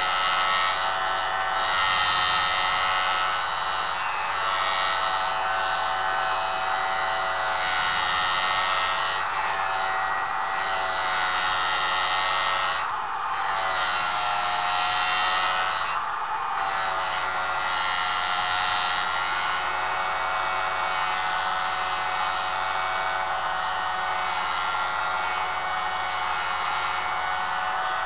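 Jool Tool sharpening system's motor running steadily with a high whine, and the hiss of its abrasive disc grinding a tool edge rising and falling. Twice about halfway through, the motor's pitch dips briefly as it is loaded.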